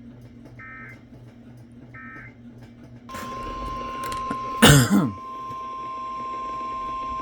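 Emergency Alert System broadcast: the last of three short digital end-of-message data bursts, closing the previous warning; then about three seconds in the steady 1050 Hz weather radio warning alarm tone starts, announcing the next severe thunderstorm warning. About a second and a half after the tone starts, a person loudly clears their throat.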